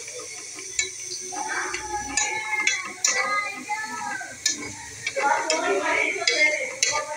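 Kitchen clatter: scattered clinks of metal utensils against steel pots and dishes, with a voice in the background twice.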